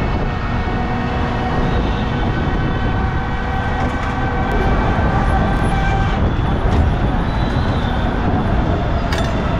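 Heavy street traffic noise with long, overlapping horn tones at several pitches.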